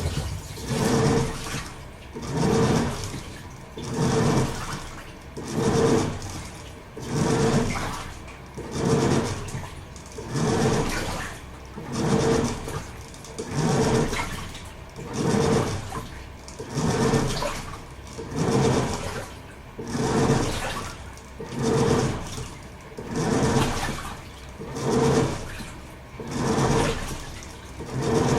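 Toshiba AW-42SEE4 top-loading washing machine in its wash stage: the pulsator churns and sloshes the water in even surges, about one every second and a half, each with a motor hum as it turns one way and then the other.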